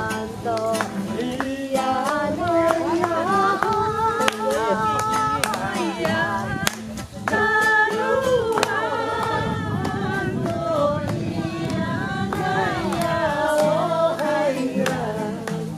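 A group of people singing a song together, several voices at once, over frequent sharp percussive hits; the singing breaks briefly about seven seconds in.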